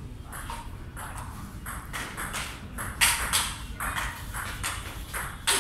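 Table tennis rally: the celluloid ball clicking back and forth off the bats and the table in an uneven run of quick knocks, with a harder hit about three seconds in and another near the end.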